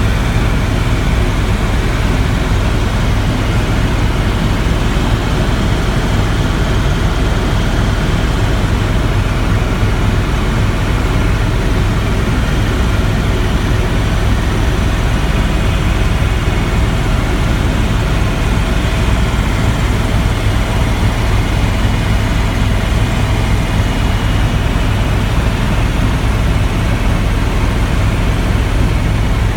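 Steady, loud helicopter cabin noise in flight: the engine and rotor make a constant low drone with a rushing hiss above it.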